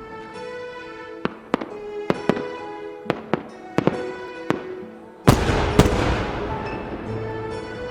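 Firework bangs and pops over a soft music intro, then one loud firework burst about five seconds in that trails off in crackle.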